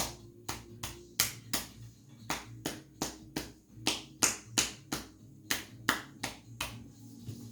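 A massage therapist's hands striking a patient's chest wall in rhythmic percussive tapping, about three strikes a second, stopping shortly before the end. This is chest percussion massage, done to loosen phlegm and drain the bronchi.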